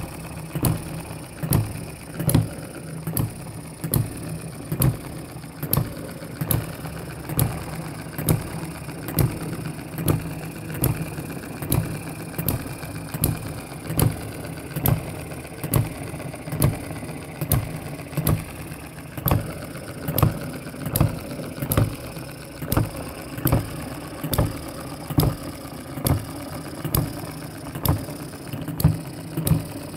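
Miniature hit-and-miss water-cooled single-cylinder engine running, its firing strokes coming as sharp pops less than a second apart over the steady clatter of its mechanism.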